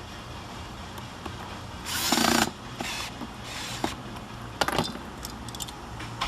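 Power drill run in short bursts, the longest and loudest about two seconds in, followed by a few shorter bursts and sharp clicks and knocks of parts being fitted.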